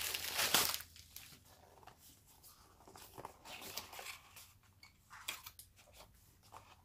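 Packaging being handled by hand: a loud rustle of wrapping in the first second, then quieter scattered rustles and small clicks as a small cardboard box is handled.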